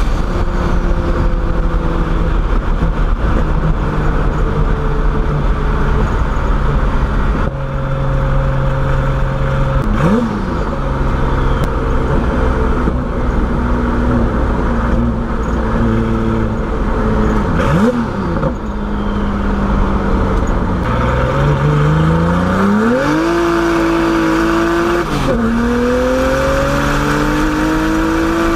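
Turbocharged BMW E30's engine under way: the revs hold steady, blip sharply up and down twice, then climb about 21 seconds in, hold, dip and climb again near the end.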